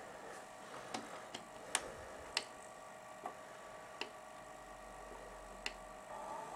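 Sharp, irregularly spaced clicks from a Sony C40 Betamax deck's front-panel buttons and tape mechanism, about seven in all, the loudest two around two seconds in, over a faint steady machine hum.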